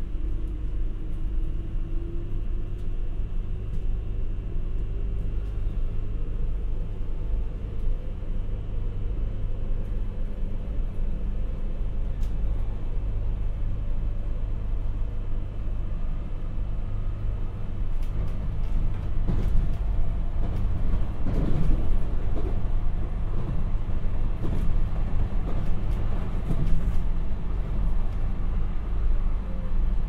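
Running noise of a JR Hokkaido 721 series electric train, heard from inside the car: a steady low rumble of wheels on rail, with a whine that rises in pitch through the first ten seconds or so. From about eighteen seconds on it turns busier and a little louder, with rattling and clatter.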